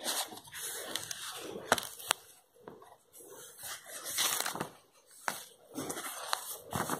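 Stiff scrapbook journal pages rustling and being turned by hand, with a few sharp paper snaps among the rustle.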